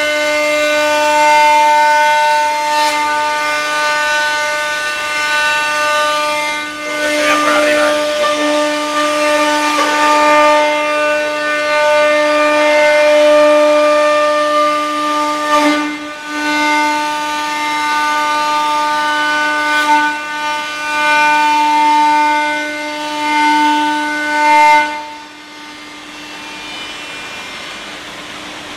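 CNC machine running with a steady, constant-pitched whine that grows louder and softer by turns. About 25 seconds in the whine stops, and a quieter steady hiss is left.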